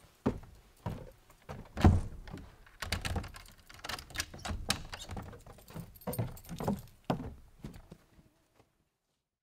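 Footsteps on wooden porch steps, one heavy thump the loudest, then keys jangling and clicking in a door lock as the front door is locked, then a few footsteps back down the steps; everything stops about a second before the end.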